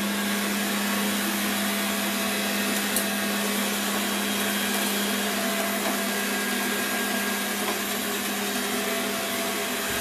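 MOVA Z500 robot vacuum running: a steady whir from its suction fan and brushes with a constant low hum, as it cleans along the edges of a tiled floor.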